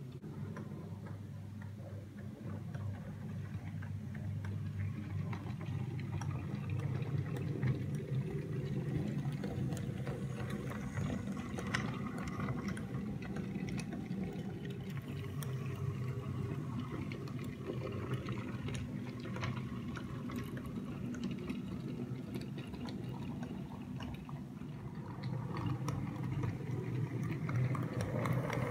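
OO gauge model train running on the track: a steady motor and wheel hum with irregular clicking of wheels over the rail joints, getting louder near the end as the locomotive and wagons pass close by.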